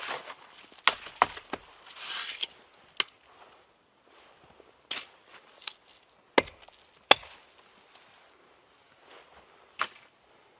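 Sharp cracks of dry wood, about nine at irregular intervals, the loudest two a little past the middle, with a brief rustle about two seconds in.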